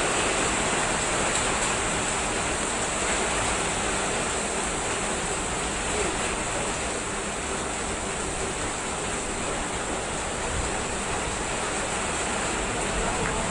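Heavy thunderstorm rain pouring down steadily, a dense even hiss with no break.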